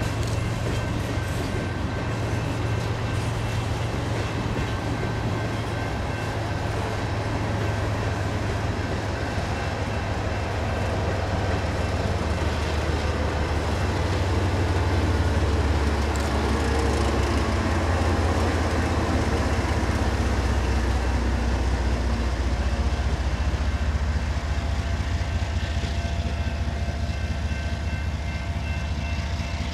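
Freight hopper cars rolling past with steady rail noise. About halfway through, the trailing BNSF GE ES44DC distributed-power locomotive passes, and its diesel engine adds a low drone that is loudest as it goes by, then eases off as the train moves away.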